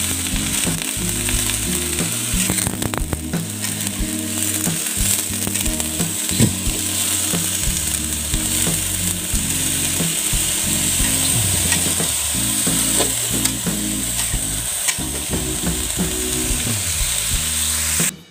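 Sliced bitter melon sizzling in an aluminium wok just after a splash of water, a steady hiss. A metal spatula scrapes and clinks against the pan now and then as it is stirred.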